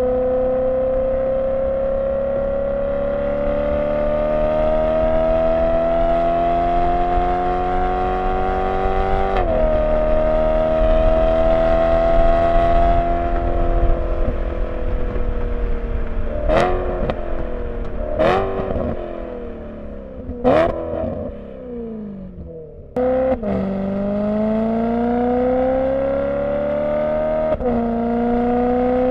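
BMW E92 M3's V8 heard through a Borla ATAK exhaust fitted with venturis while driving: engine pitch climbing under acceleration with a gear change about a third of the way in, then slowing with three short sharp throttle blips, then pulling up again with another gear change near the end.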